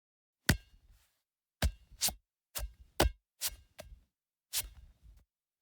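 A run of about nine sharp knocks or taps at irregular spacing, some in quick pairs, with silence between them.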